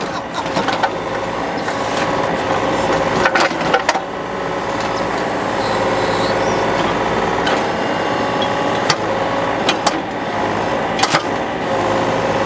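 Mini excavator running with a steady engine and hydraulic hum, broken by several sharp knocks and clanks from the machine working.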